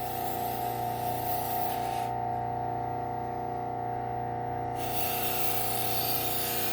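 Bucktool low-speed sander's motor running with a steady hum while a serrated knife blade is drawn across the spinning Scotch-Brite wheel, a hissing rub for the first two seconds and again near the end: the burr being cleaned off the serrations.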